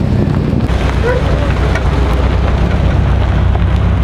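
Car engines running with a low, steady rumble under a noisy hiss, with faint voices in the background.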